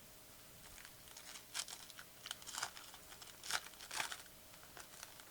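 Faint crinkling and rustling of trading-card packaging being handled, in a string of short crackles that are loudest about three and a half and four seconds in.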